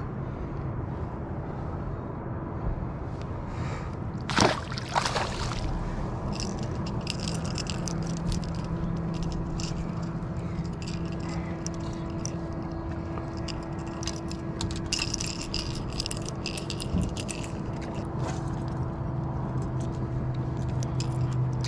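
A boat motor hums steadily. About four seconds in there is a short loud noise, and later the treble hooks of a fishing lure click and rattle as it is handled.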